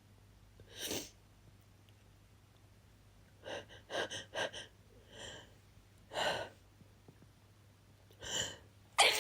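A person's sharp, gasping in-breaths, several in a quick cluster and others spaced out, building up to a sneeze that bursts out loudly right at the end.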